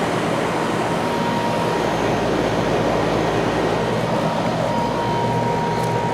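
Lennox Elite Series XP14 heat pump outdoor unit running in heat mode: a steady fan rush over a low compressor hum. A thin high-pitched tone fades out early on and comes back about five seconds in.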